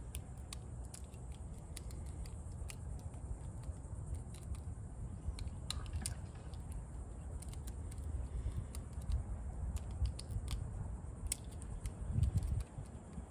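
Small screwdriver loosening the screw lugs of a plastic pluggable terminal block: faint, irregular clicks of the blade in the screw heads and of the connector being handled, over a steady low rumble.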